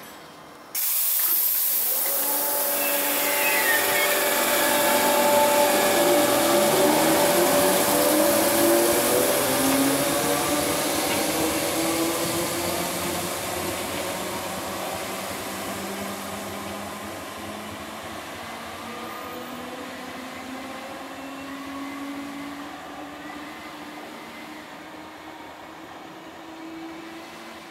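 Merseyrail PEP electric multiple unit pulling away, its traction motors whining in several tones that climb slowly in pitch as it gathers speed. The sound starts suddenly about a second in, is loudest a few seconds later, then fades steadily as the train draws off into the distance.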